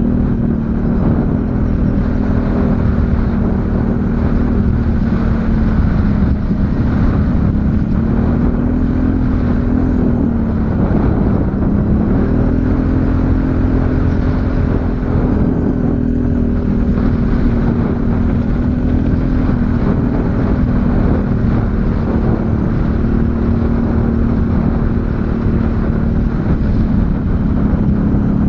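ATV engine running steadily under way, its pitch dipping and rising slightly about ten seconds in and again near the end, over a heavy low rumble.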